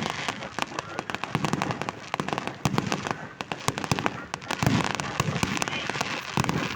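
Fireworks going off: a dense run of rapid crackling pops, with several deeper booms among them.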